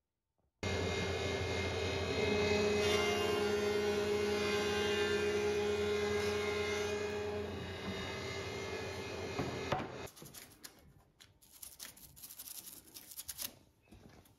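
Stationary thicknessing machine with dust extraction running loud and steady as an end-grain board is fed through, its pitch shifting slightly under load. It cuts off about ten seconds in, followed by quiet handling clicks and knocks.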